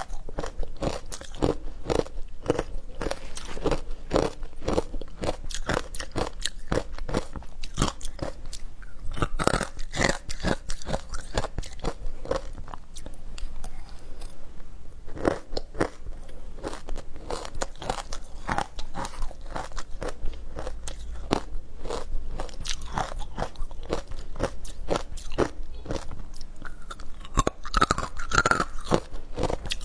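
Shaved ice coated in matcha powder being bitten and chewed: a dense, continuous run of crisp crunches as the ice breaks between the teeth.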